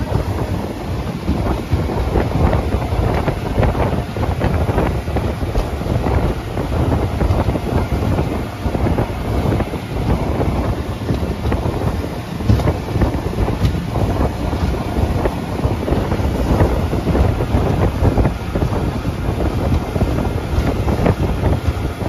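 Wind buffeting the microphone in irregular gusts as a fishing boat runs at speed, with the boat's running noise underneath.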